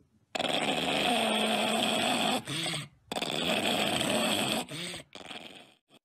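Pug making long, drawn-out vocal sounds: two of about two seconds each, with a wavering pitch, then a shorter one near the end.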